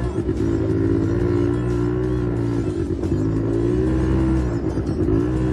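Small quad bike (ATV) engine running close by, its pitch dipping and rising a few times as the throttle changes.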